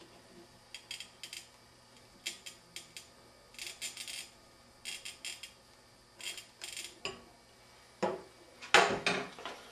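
Bottle cutter's cutting wheel scoring a line around a glass olive jar as the jar is turned by hand: six short, high-pitched scratchy bursts about a second and a half apart. From about seven seconds in come louder knocks and rattles as the cutter is handled and taken off the jar.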